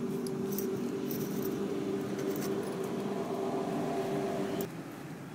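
A steady mechanical hum from an unseen motor, with faint clicks and rustles as a fish is handled in a wire-rimmed landing net. The hum cuts off suddenly near the end, leaving a quieter hiss.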